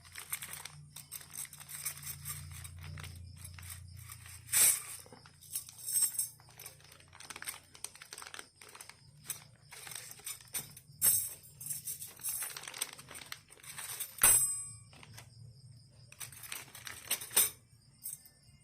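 Metal motorcycle spokes being handled and sorted, making a run of irregular rustles, light clinks and clicks, with one sharp click about fourteen seconds in.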